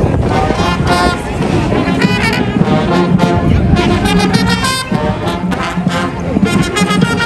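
Marching brass band playing, horns sounding runs of short notes over a held low note.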